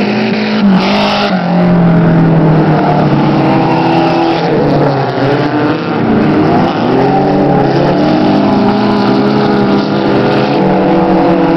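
Several dirt-track race car engines running together around the oval, their overlapping pitches rising and falling as the cars accelerate and lift through the turns.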